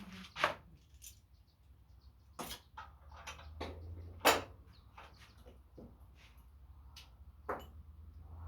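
Scattered metallic clicks and knocks of hand tools being handled during thread repair on a small-engine crankshaft, over a steady low hum.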